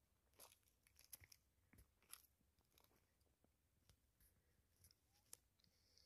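Near silence broken by faint, irregular clicks and crackles.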